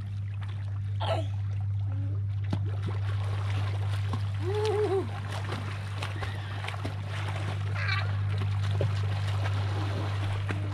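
Shallow sea water splashing and sloshing as a child is pulled and swung through it, with louder splashes about a second in and near 8 seconds, over a steady low hum.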